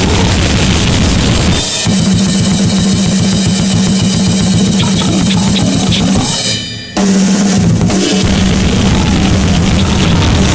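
Harsh noise music: a loud, dense wall of distorted static over a low buzzing drone. The texture changes abruptly about two seconds in, and the sound dips briefly near seven seconds before coming straight back.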